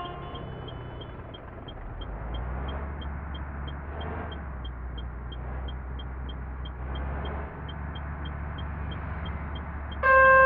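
Hyundai sleeper coach running with a steady low engine hum and road noise, and a light ticking about three times a second.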